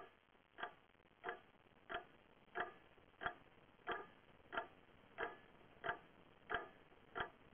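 Clock ticking at an even pace, about three ticks every two seconds.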